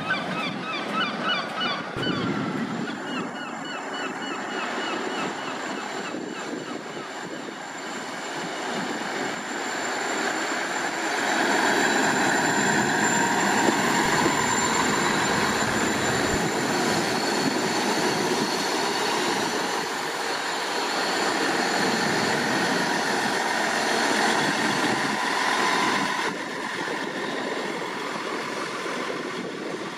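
Diesel multiple units at a station: first a Great Western Railway Class 158 unit pulls in with a high, wavering squeal in the first few seconds. After that a South Western Railway Class 159 diesel unit runs past with a steady engine sound and a held whine, which grows louder about eleven seconds in and eases off near the end.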